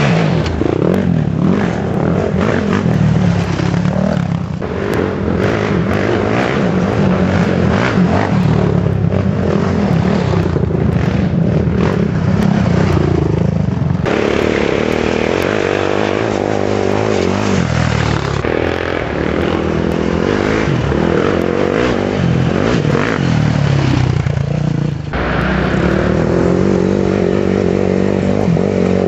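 Sport quad (ATV) racing engines revving hard as several quads accelerate past one after another, the engine pitch rising and falling as each one goes by.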